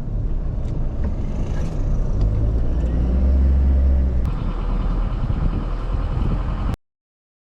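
Car on the move: steady engine and road rumble, swelling a little midway, that cuts off suddenly near the end.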